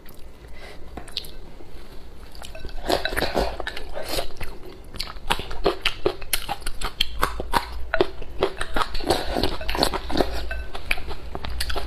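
Close-up mouth sounds of biting and chewing a pickled green chili pepper, with many irregular crisp crunches starting about three seconds in. The green pickled peppers are the crisper kind.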